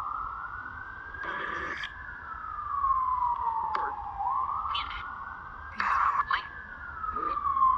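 Siren wailing in slow rise-and-fall sweeps, climbing twice and falling back each time. Short crackles of radio static from a spirit box cut in and out over it.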